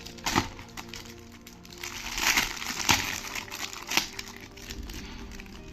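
Packaging being opened by hand: crinkling and rustling with a few sharp snaps, the busiest stretch about two to three seconds in, over soft background music.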